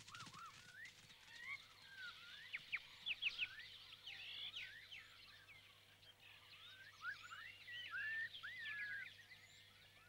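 Faint forest ambience of many birds chirping and whistling: short overlapping calls that rise and fall in pitch, busiest about three seconds in and again around eight seconds.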